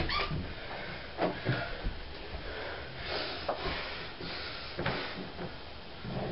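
A wooden bedroom door clicking open, a sharp loud click at the start, then a few faint thuds and shuffling steps moving away.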